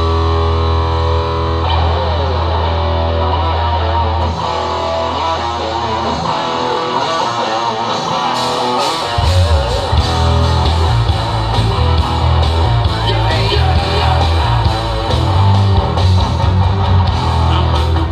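Rock band playing live, heavy and loud: electric guitar and bass hold long sustained notes, then the drums come in about nine seconds in and the band drives into a heavy riff.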